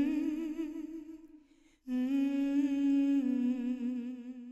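A single voice humming a slow, wordless melody in long held notes with a slight waver, pausing briefly about a second and a half in before taking up the next note.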